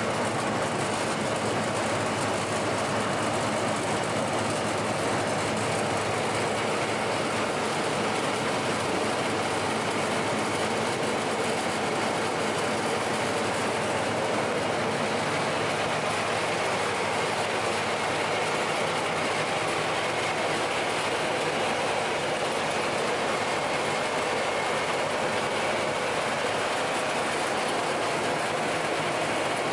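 SAFO DNAA 140 log-rounding machine running empty after being switched on: a steady mechanical running noise from its motors, cutter head and feed-roller drives, even throughout.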